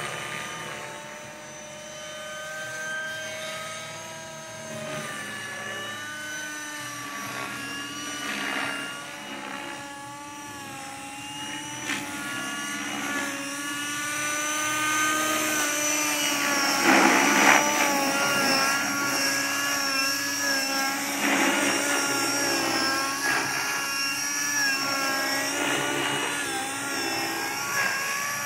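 Align T-Rex 600 radio-controlled helicopter in flight: a whine of several tones that slides up and down in pitch, growing louder after the first few seconds as the helicopter comes closer.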